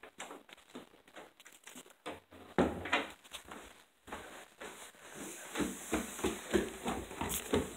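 Irregular knocks and rustles of a phone being handled and carried about, with a quicker run of soft thuds in the second half.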